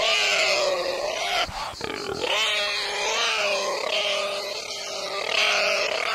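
Pig squealing and grunting: a continuous run of high, wavering squeals.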